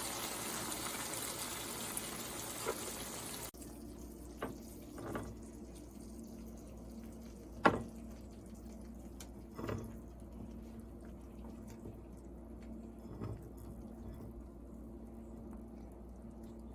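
Water running from a kitchen tap, stopping abruptly a few seconds in, followed by a few scattered soft knocks and clinks.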